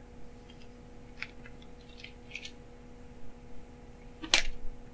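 Quiet room tone with a steady low hum, a few faint rustles, and one sharp click about four seconds in.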